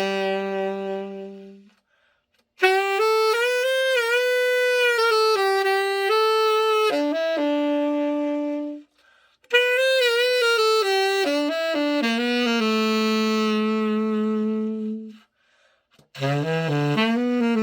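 Vintage Novasax TX-502 tenor saxophone played solo after a full overhaul: slow melodic phrases of held notes, some with vibrato, each ending on a long low note. Brief pauses fall about 2, 9 and 15 seconds in.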